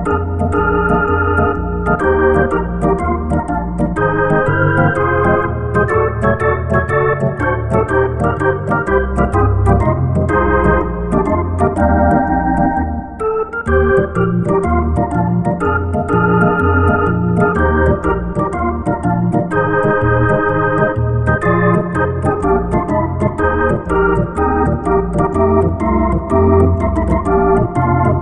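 Background music: an organ playing sustained chords over a pulsing bass line, with a steady light beat.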